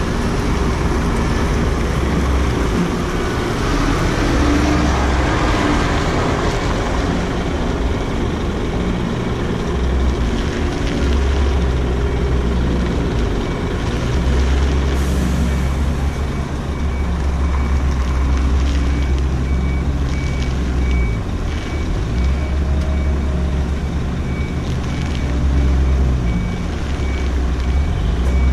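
Heavy truck's diesel engine running low and steady while the truck reverses slowly. Its high-pitched reversing alarm beeps evenly from about halfway through, and a short hiss comes just before the beeping starts.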